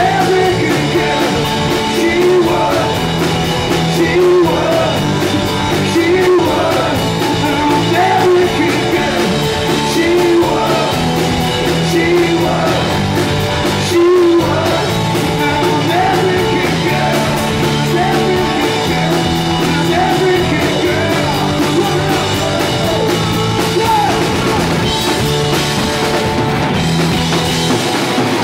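Live rock band playing: a male lead singer sings over electric guitar, bass and drums.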